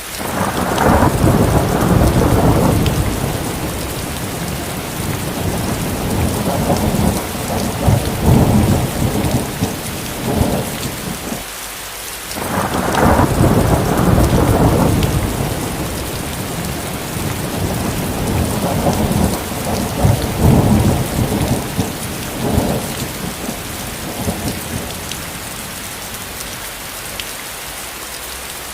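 Steady heavy rain with thunder: a long rolling rumble begins right at the start and dies down, and a second roll starts about twelve seconds in and trails off before the end, leaving only the rain.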